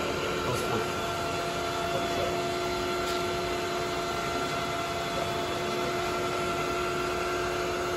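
Metal lathe running at steady speed with a constant whine from its spindle drive, the turning tool taking a light finishing pass along the outside diameter of aluminium stock.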